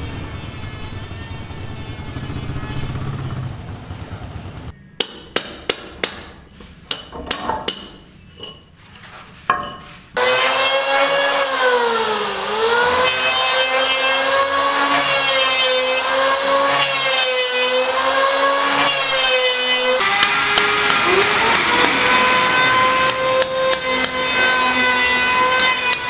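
Building work with hand and power tools. From about five seconds in there are about a dozen sharp hammer strikes. From about ten seconds a handheld power tool cuts timber with a loud whine that dips in pitch under load and recovers. From about twenty seconds a power drill whines steadily.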